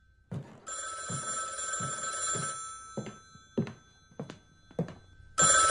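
Vintage desk telephone's bell ringing for about two seconds, then again near the end, with slow, evenly spaced footsteps about one every 0.6 s as someone walks toward it.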